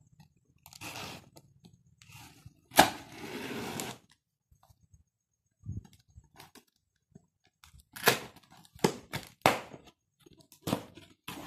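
Scissors slitting and tearing the packing tape on a cardboard box: short rasps, then a sharp snap about three seconds in followed by a second of tearing. Later comes a quick run of sharp taps and knocks on the cardboard.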